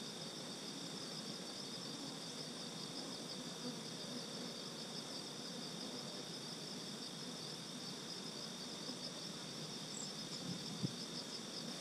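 Insects chirping in a steady, fast-pulsing chorus.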